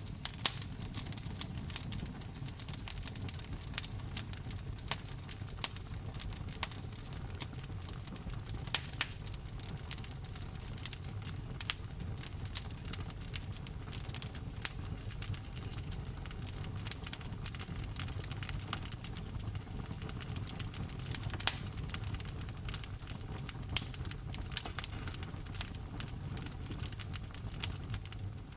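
Wood fire crackling in a fireplace: irregular sharp pops and snaps over a steady low rumble of burning logs.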